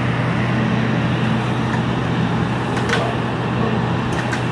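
Steady drone of a fire engine's diesel engine running its pump to feed the hose line, over a continuous hiss of the hose spraying water onto a burning ambulance. A few light clicks are heard about three and four seconds in.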